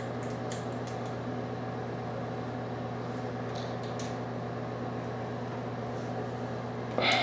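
Steady electrical hum of a small motor, like a ventilation fan, with a few faint light ticks, likely a small hex key clicking against the metal holder post as the set screw is turned.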